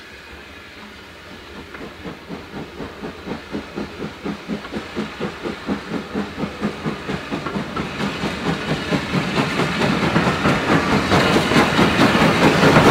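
LSWR T3 4-4-0 steam locomotive No. 563 working a train: chimney exhaust beats at about three a second, quickening a little and growing steadily louder as it approaches and passes. A loud hiss of steam builds over the beats near the end.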